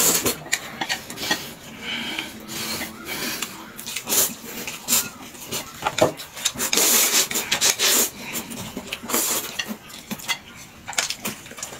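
Noodles being slurped and chewed from chopsticks: a run of irregular, noisy sucking slurps, the longest lasting about a second and a half past the middle.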